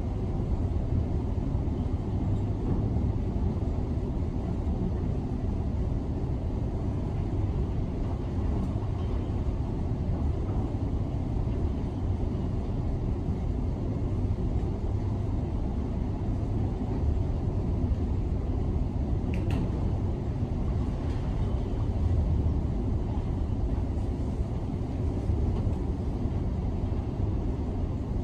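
Steady low rumble of heavy demolition machinery working on the viaduct, heard through a closed office window.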